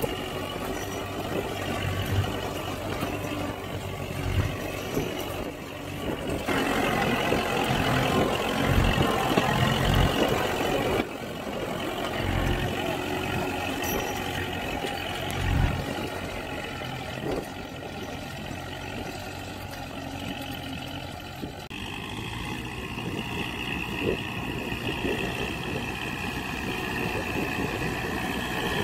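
Kubota MU4501 tractor's four-cylinder diesel engine running steadily as it pulls a tine cultivator through the soil. The sound changes abruptly a few times, about a quarter, a third and three quarters of the way through.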